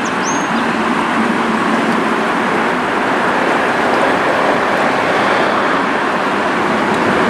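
Steady rushing of fast-flowing river water around a drift boat.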